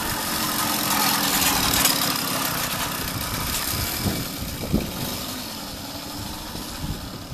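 Moped engine, freshly rebuilt with a new piston, running under riding, louder in the first two seconds and then easing off, with a couple of quick revs about four to five seconds in.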